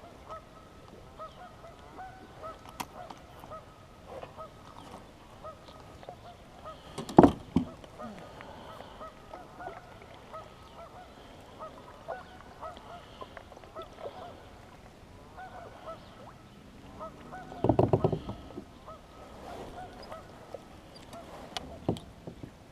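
A flock of geese honking over and over on the water. There is a single sharp knock about seven seconds in, the loudest sound, and a short rattle of rapid knocks about eighteen seconds in.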